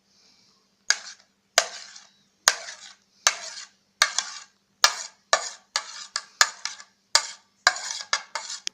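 A spoon scraping and tapping grated tomato paste out into a bowl: a string of sharp scrapes and knocks, about one a second at first and coming quicker in the second half.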